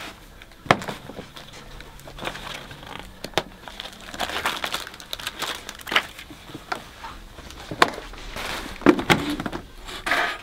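Plastic packaging rustling and crinkling, with scattered sharp clicks and knocks from handling a plastic booster car seat.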